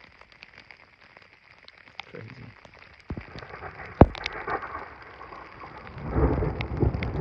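Rain falling on a rain-jacket hood close to the microphone, with single drops striking in sharp clicks; one loud strike about four seconds in. A louder rough rushing noise comes in over the last second or so.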